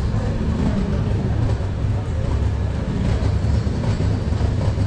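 Steady low rumble of railway station ambience from trains at the platform, with faint voices of waiting passengers.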